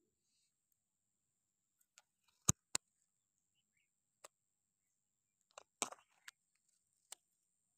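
Several sharp clicks and light crackles over near quiet. The loudest two come about a quarter second apart, a short cluster follows about three seconds later, then one more click, with a faint steady high whine underneath.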